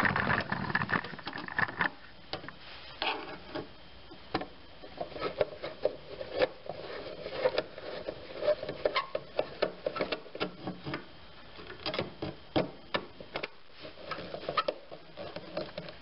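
Screwdriver tightening the screw on the metal strap that clamps a capacitor inside an air conditioner's sheet-metal box: irregular small clicks and scrapes of metal on metal.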